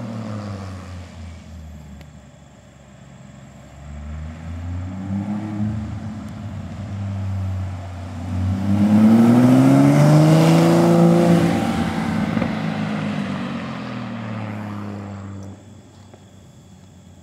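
Porsche Cayman S flat-six with a custom exhaust driving past under acceleration. The engine note rises and falls in pitch as it comes closer, is loudest about ten seconds in, then fades away, leaving only faint background.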